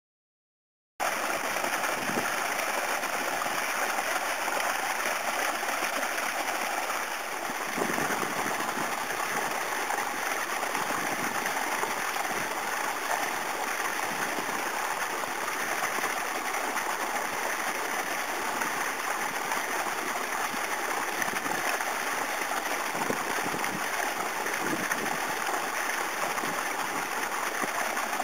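Steady rushing water noise, which starts abruptly about a second in and holds level.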